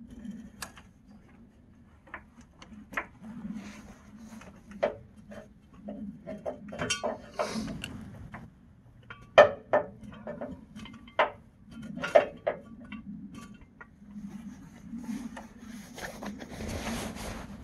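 Scattered metallic clinks and knocks of hand tools and parts being worked on a pickup's front suspension, over a steady low hum. A brief rushing noise comes near the end.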